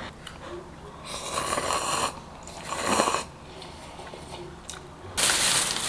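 A person slurping instant glass noodles: two airy slurps, about a second and about three seconds in, followed by a louder rushing noise near the end.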